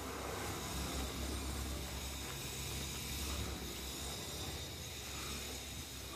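Wind on the microphone outdoors: a steady hiss with an uneven low rumble.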